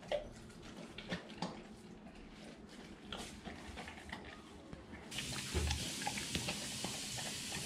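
Dogo Argentino eating raw meat-and-vegetable food from a ceramic bowl: scattered wet chewing and small clicks of teeth and bowl. About five seconds in a steady hiss starts abruptly, with a low thump just after.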